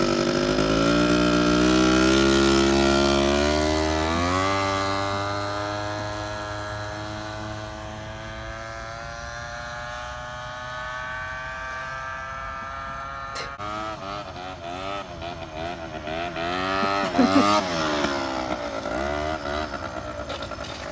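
Small gas scooter engine revving hard as it pulls away at full throttle, the pitch climbing in steps, then fading as it rides off into the distance. Past the halfway point it comes back louder, the pitch rising and falling as the rider works the throttle, loudest a few seconds from the end. A single sharp click comes just before it returns.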